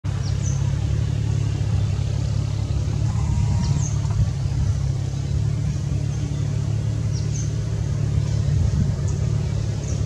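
Steady low engine-like hum from a running motor vehicle, with short, high bird chirps about every three to four seconds.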